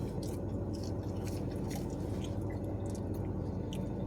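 A person chewing food, with scattered small wet mouth clicks and smacks, over a steady low hum.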